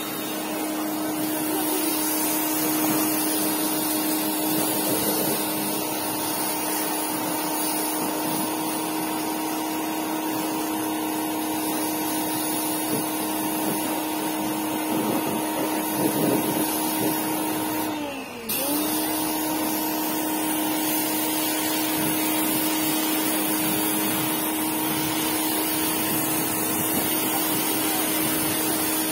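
Black+Decker electric pressure washer running, its pump motor giving a steady hum over the hiss of the water jet. About two thirds of the way through, the hum falls in pitch and cuts out for a moment, then picks up again.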